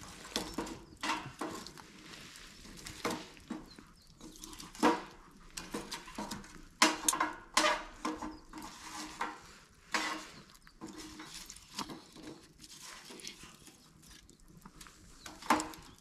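Irregular clicks, knocks and clatter of cookware and utensils being handled, with a few sharper knocks among softer rattles.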